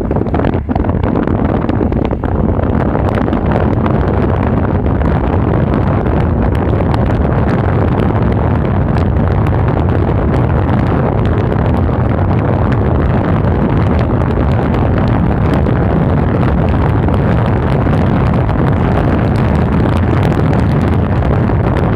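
Strong thunderstorm winds blasting the microphone: a loud, steady, low rush of wind noise that starts and stops abruptly.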